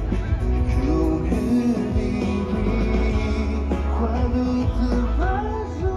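Live band playing amplified rock music, with a singer's voice over a heavy bass line.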